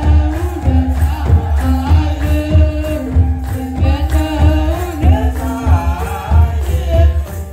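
A group of young deacons chanting wereb, an Eritrean Orthodox Tewahedo liturgical hymn, in unison to a kebero drum beating a steady rhythm under the voices.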